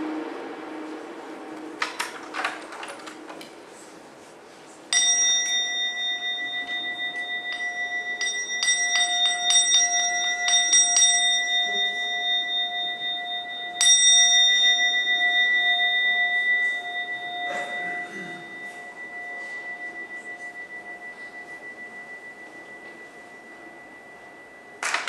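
A bell struck twice, about five seconds in and again about nine seconds later, each strike ringing on with a slow, pulsing decay; a few light clicks come before and between the strikes.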